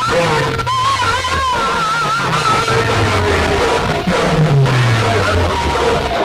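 Loud music played through a road-show DJ sound-box system: deep bass notes that slide downward every second or two under a wavering lead melody.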